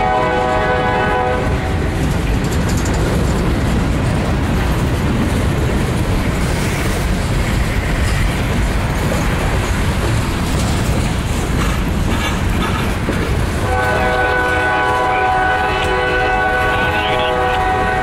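Freight cars rolling past, wheels rumbling and clattering on the rails. The lead GE CW44AC locomotive's multi-chime horn sounds from up the line, dying away about a second and a half in and sounding again for the last four seconds or so.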